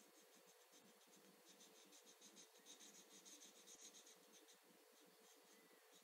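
Faint, quick scratchy strokes of a toddler scribbling with a colouring pen on a board-book page. They get busier around the middle and thin out after about four seconds.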